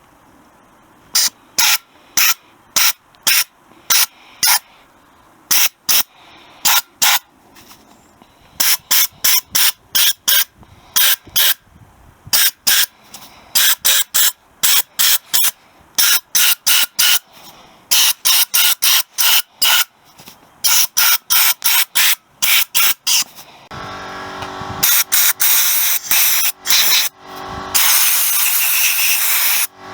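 Gravity-feed soda blaster gun spraying sodium bicarbonate on compressed air in dozens of short hissing bursts. Near the end the blasts become longer and steadier, with a pitched running sound beneath them.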